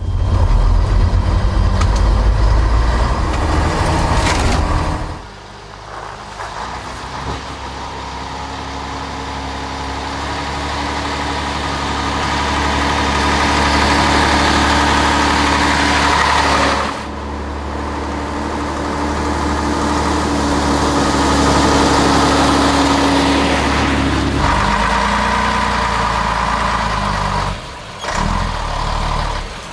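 Scania SBAT 111S (Tgb 40) military 6x6 truck's turbocharged six-cylinder diesel running as the truck drives. It is heard loud and deep from inside the cab at first, then from outside, growing gradually louder with a steady whine as the truck approaches. The sound changes abruptly several times.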